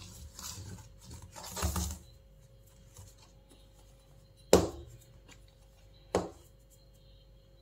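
Fingers stirring a dry flour mix in a stainless steel bowl, a soft rustling, then the steel bowl knocked twice on the stone countertop, about a second and a half apart, the first knock louder.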